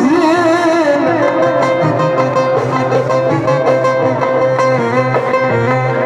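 Middle Eastern instrumental music from a Sufi inshad ensemble: an ornamented, wavering melody over a held note, with percussion keeping a steady beat.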